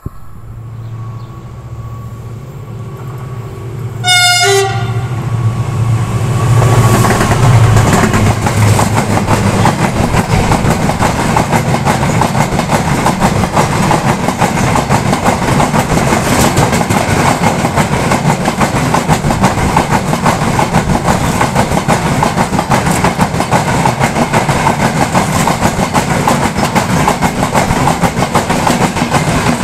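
A short, single train horn blast about four seconds in, over a low hum that builds as the train nears. Then a container freight train passes close by: a loud, steady rush and rattle of the wagons on the rails.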